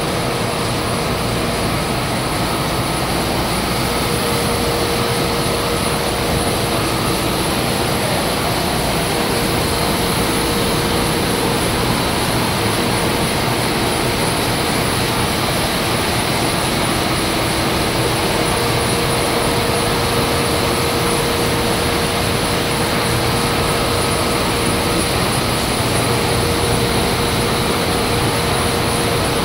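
Arsoma EM280 flexographic label printing press running: a steady, loud mechanical noise with a faint high whine and a mid-pitched hum that fades in and out.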